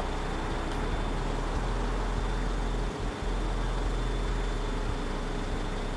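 Steady background noise: an even hiss with a low hum and a faint high steady tone, briefly dipping about three seconds in, with no distinct events.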